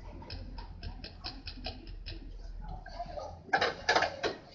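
Spatula scraping and tapping against a nonstick frying pan while stirring crushed red chillies, cumin and whole coriander seeds as they dry-roast. A run of light ticks at about five a second, then louder scraping and clatter near the end.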